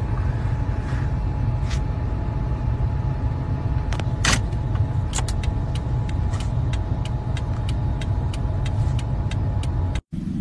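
Cabin noise inside a car: a steady low engine and road rumble with a faint steady hum. There is a sharp click about four seconds in, then a run of quick, evenly spaced ticks, about three a second, through the second half.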